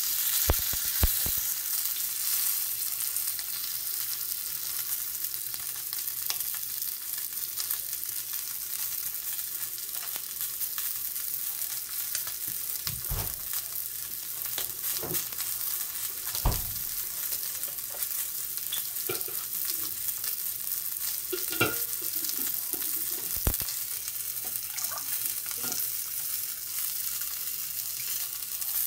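Dry-aged ribeye sizzling in a hot cast-iron skillet, seared on its fat edge: a steady hiss of frying fat. A few short knocks sound over it, two about half a second apart near the start.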